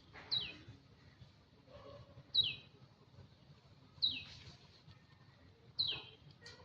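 A short, high-pitched call that falls sharply in pitch, repeated four times about every two seconds.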